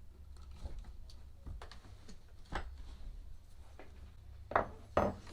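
Small clicks and taps of hard plastic leaf-blower tube parts being handled while a screw is tightened with a small screwdriver, with two louder knocks near the end.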